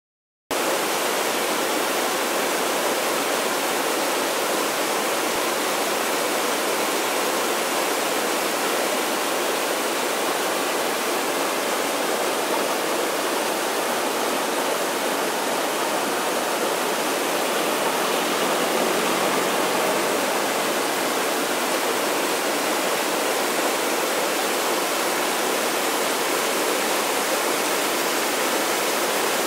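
Steady rush of a rocky river pouring over boulders in small falls and rapids, starting about half a second in and holding even throughout.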